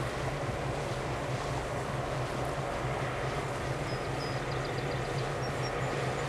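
Diesel locomotive idling while the train stands stopped: a steady low engine hum with some wind noise on the microphone. A short run of faint high chirps comes about four seconds in.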